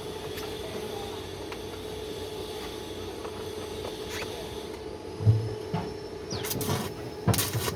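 A steady machine hum, with a single heavy knock about five seconds in, then three short bursts of harsh hissing noise near the end.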